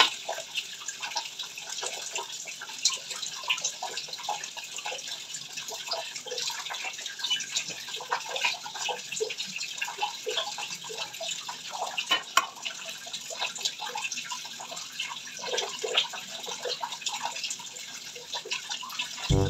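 Water running steadily with a trickling, splashing patter.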